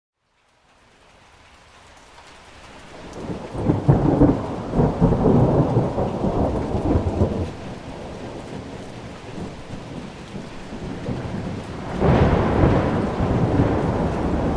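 Thunderstorm: steady rain with two long rolls of thunder. The first swells up from about three seconds in, and the second breaks in suddenly near the end. It opens with a moment of silence before the rain fades in.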